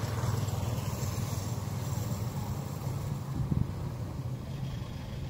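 Kubota DC-105X combine harvester's diesel engine running steadily under load, with a brief louder thump about three and a half seconds in.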